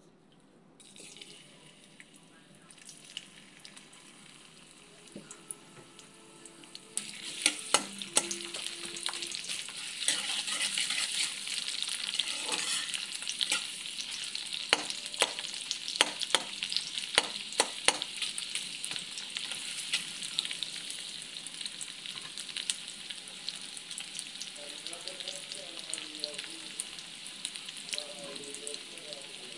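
Sliced onions frying in hot oil in a steel kadai. A faint sizzle becomes loud about seven seconds in, and a metal spatula clacks against the pan several times over the next ten seconds as the onions are stirred. The sizzle then carries on steadily.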